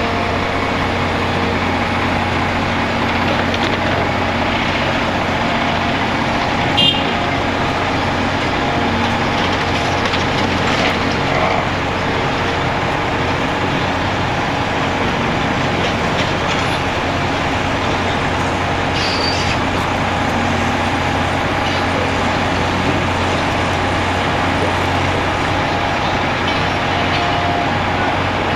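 Heavy diesel machinery or trucks running steadily, with a single sharp metallic clank about seven seconds in.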